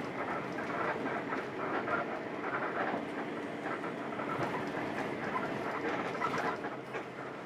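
Cabin noise inside a Mercedes-Benz OH 1526 coach on the move: a steady mix of engine and tyre noise on the road, with a running scatter of small interior rattles and clicks.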